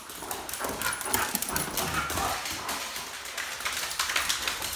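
Dogs, including a Great Dane, running and playing on a polished stone tile floor: a rapid, irregular clatter of claws and paws, loudest in the middle and again near the end, with some short dog whining.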